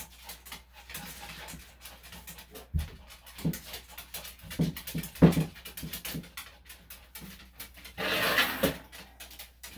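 Senior Maltese–Shih Tzu cross making small noises and shifting about while its matted tail hair is cut, with many short clicks of grooming scissors snipping. There are a few short low sounds about halfway through, the loudest about five seconds in, and a brief hissing rush near the end.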